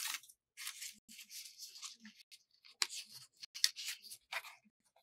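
Pleated paper fans rustling as hands press and fit them together: a series of short, irregular paper scrapes.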